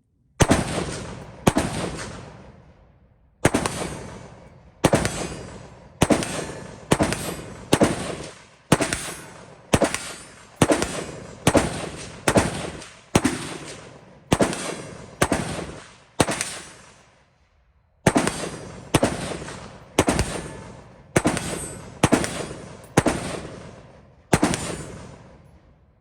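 ATI AR-15 pistol with a 7.5-inch barrel fired semi-automatically in a rapid mag dump: about thirty sharp shots at roughly one every 0.7 seconds, each trailing off in an echo, with a short pause a bit past the middle.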